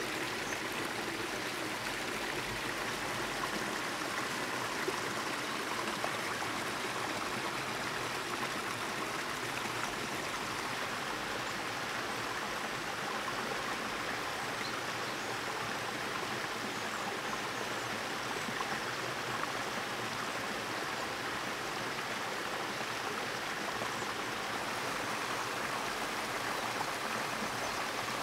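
A stream running, a steady rush of flowing water.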